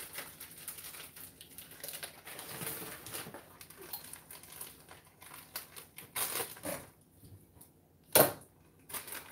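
Plastic crisp packet crinkling and crackling as it is handled and opened, in many small irregular crackles, with one sharp, loud crackle about eight seconds in.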